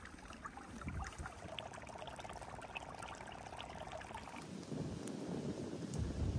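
Shallow mountain stream trickling and gurgling over stones. A little past halfway the trickle gives way to a lower, rougher rumbling noise.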